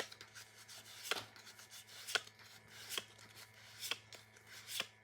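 Pokémon trading cards being flipped through one at a time, each card slid off the stack with a short sharp flick, about once a second, six times.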